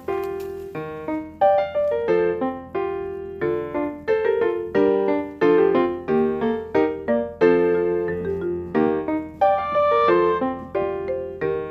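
Background music: piano playing a steady run of notes, several at a time, each struck and fading.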